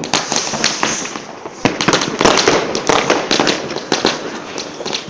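Fireworks and firecrackers going off all around, a dense, uneven string of sharp bangs and crackles with no pause.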